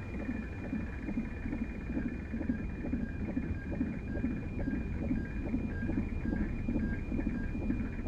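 Fetal heartbeat picked up by a Doppler ultrasound probe: a rapid, even pulsing whoosh. Thin steady electronic tones from the ultrasound machine sound above it, breaking off briefly now and then.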